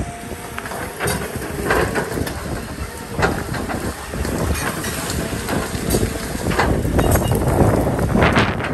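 Caterpillar 320 tracked excavator running under load as its bucket pulls through brush, with many sharp cracks of branches snapping over the engine's low rumble. It grows louder about halfway through.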